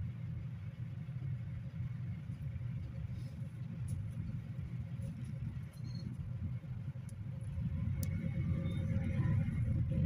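Engine and road rumble of a GAZelle Next minibus heard from inside the cabin while it sits in slow traffic. It grows louder over the last few seconds as the bus pulls forward.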